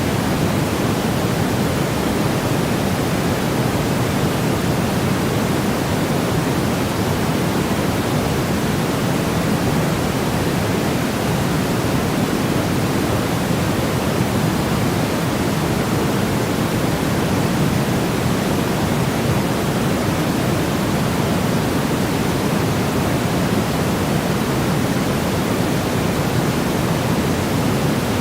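Steady white-noise track, an even hiss with no change or events, weighted toward the low end like pink noise.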